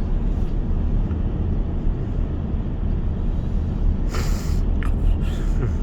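Steady low rumble of a car driving, heard inside the cabin: road and engine noise. A short hiss cuts through about four seconds in.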